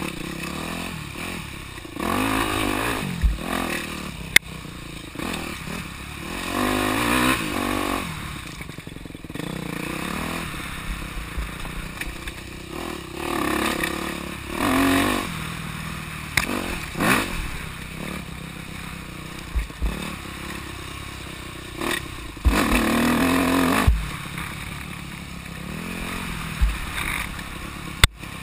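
Dirt bike engine revving up and easing off in repeated bursts as the bike is ridden along a rough trail, with sharp clacks and knocks scattered between the bursts.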